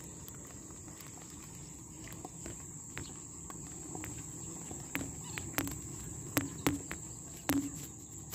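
Insects chirring steadily at a high pitch, with a series of sharp clicks and knocks that start about three seconds in and come closer together and louder toward the end.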